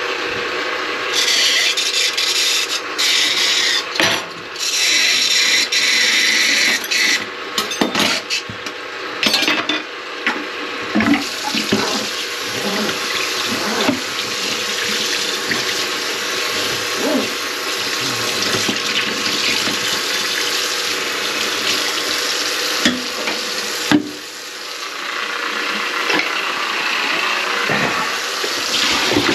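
Water running in a kitchen sink, coming in short stop-start spurts with clicks over the first ten seconds, then flowing steadily with a few knocks.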